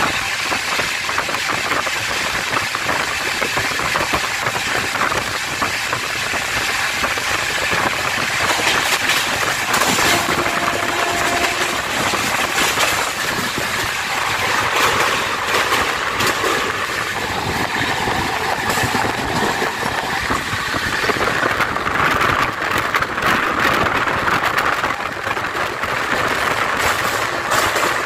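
Express passenger train running at speed, heard from an open coach door: a steady rush of wind and wheels on the rails, with constant rapid clicking and rattling.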